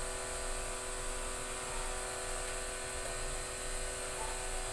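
Steady electrical hum with a constant hiss, unchanging throughout, with no distinct knocks or clatter.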